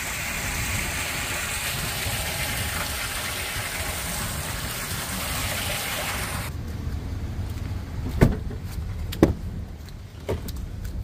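Water rushing steadily down through a cast-iron storm drain grate just freed of the ice that had been clogging it, over a low engine rumble. The rush cuts off suddenly about six seconds in, and three sharp knocks follow about a second apart.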